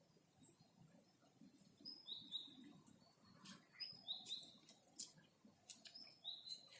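A songbird singing faintly, repeating a short phrase of a high note followed by two slightly lower notes three times, about every two seconds, with a few faint clicks in between.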